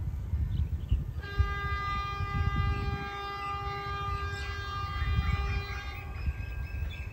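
Locomotive horn of an approaching freight train: one long, steady blast of about five seconds, starting about a second in, over a low rumble.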